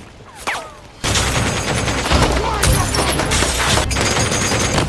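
Heavy automatic gunfire from a belt-fed machine gun. It breaks out suddenly about a second in and keeps up as a dense, continuous volley.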